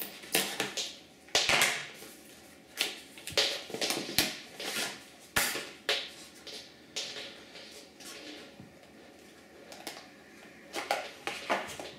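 Irregular plastic clicks, taps and short scrapes of hands working on a laptop's underside: a drive pulled out of its bay and a plastic SSD case handled.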